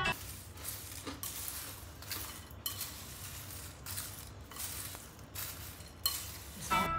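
A metal spoon stirring crisp fried kara boondi with peanuts and cashews in a glass bowl: a dry rustling of the crunchy mix with a few clinks of the spoon on the glass.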